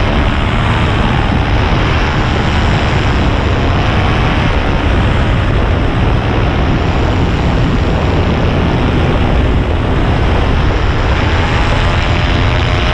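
Paramotor engine and propeller running steadily at power in flight: a loud, even drone whose pitch wavers only slightly.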